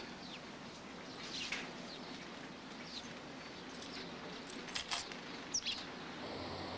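Faint outdoor background with a few short, high-pitched bird chirps scattered through it.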